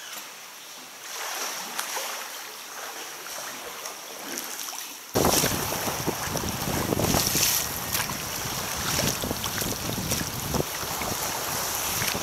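Quiet water lapping in a sea cave. About five seconds in it changes abruptly to loud, gusty wind buffeting the microphone over choppy open sea.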